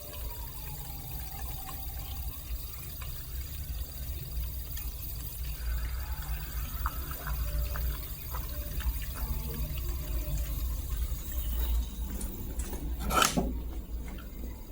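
Beko DFN05211 dishwasher running: a steady low hum with water moving inside and scattered small clicks, then one sharp knock near the end.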